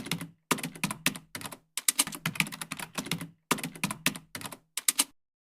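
Rapid keyboard-typing clicks in several quick bursts, separated by short gaps of complete silence, stopping about five seconds in.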